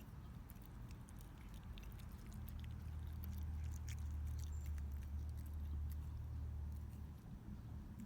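A cat chewing its food, with small scattered crunching clicks, over a low rumble that swells in the middle and fades near the end.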